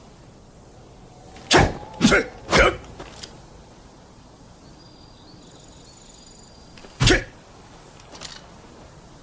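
Spear combat sound effects: three short, sharp strokes in quick succession about half a second apart, starting about a second and a half in, then a single stroke about seven seconds in and a faint one shortly after.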